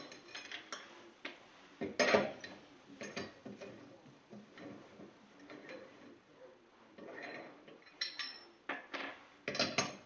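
Metal clinks and knocks of a lug wrench working loose the wheel's lug nuts and the nuts being taken off, irregular, with a louder clank about two seconds in and a quick run of clinks near the end.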